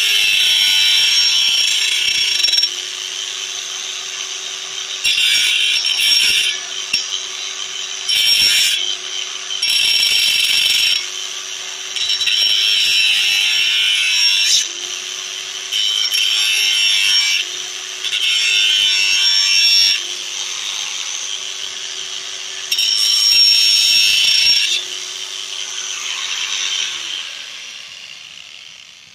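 Bosch GWS 8-100 CE angle grinder running on its low speed setting with a steady whine. Every few seconds louder bursts of harsh, rasping rubbing noise come in, each lasting one to two seconds. Near the end the motor winds down, its pitch falling away.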